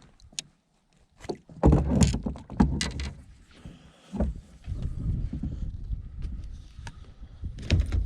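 Knocks and bumps on a kayak, with rustling and handling noise, as a fish is brought in on a rod. A cluster of loud knocks comes about two seconds in, another near the end.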